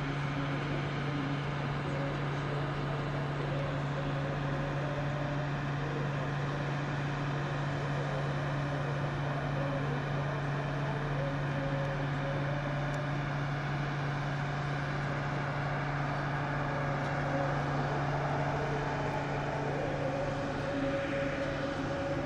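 Steady low mechanical hum, like an engine or machine running at constant speed, with a faint higher tone that wavers a little.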